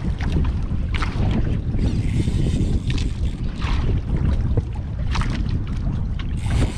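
Wind buffeting the microphone on an outrigger boat at sea, with water splashing against the hull now and then.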